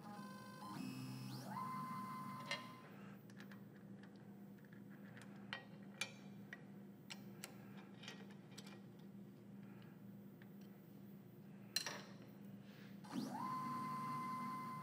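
Fourth-axis rotary table motor jogging: a whine that rises and settles into a steady tone, twice for about two seconds each, near the start and near the end. Light metallic clicks and taps come in between.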